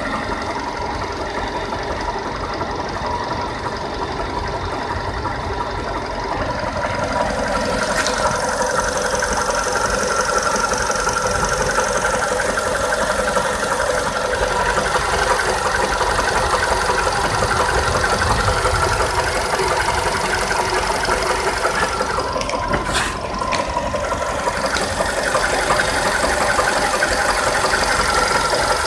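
2012 Volkswagen Polo Sedan petrol engine running warm after a long highway drive, with a knock that the owner links to the pistons.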